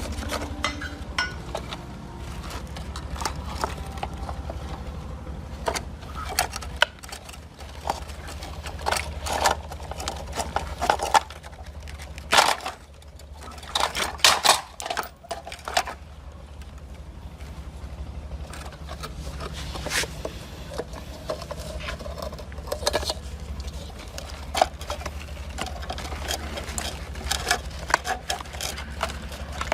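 Metal parts and tools clinking and knocking at irregular moments over a steady low hum.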